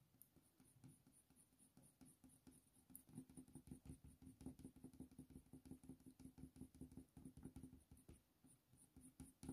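Faint, rapid scratching of a Faber-Castell Polychromos coloured pencil on smooth hot-press watercolour paper: many quick short strokes, several a second, as fur is flicked in. It builds up about a second in and thins out near the end.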